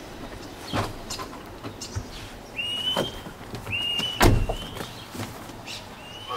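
Two short, high whistled chirps about a second apart, from a bird, over scattered light knocks, with a sharp thump a little past four seconds in as the loudest sound.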